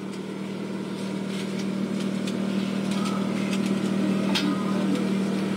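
A steady mechanical hum that grows slowly louder, with a few light clicks and knocks on top, the sharpest about four and a half seconds in.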